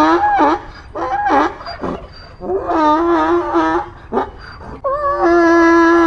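Donkey braying: repeated hee-haw calls that alternate between held, wavering tones and sliding pitch drops, with short breaks between them.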